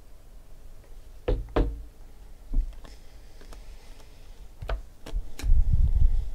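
A stack of Topps Chrome baseball cards being picked up and flipped through by hand: scattered sharp knocks and taps as the stack and cards bump together, and a low rubbing rumble near the end as the cards are handled.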